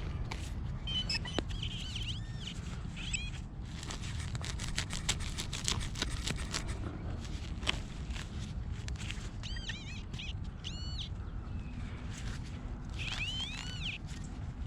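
XP Deus 2 metal detector sounding short rising-and-falling pitched tones in three groups as the coil sweeps back and forth over a buried target, which the detectorist reads as a pull tab. Scattered crackling clicks run beneath.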